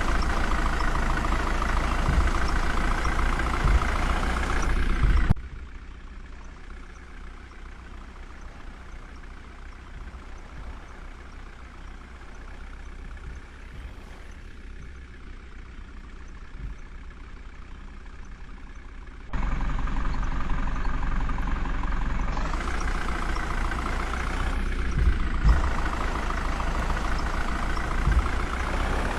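Heavy diesel engine running, from the backhoe loader or the truck. The sound drops suddenly to a much quieter level about five seconds in and comes back loud about nineteen seconds in.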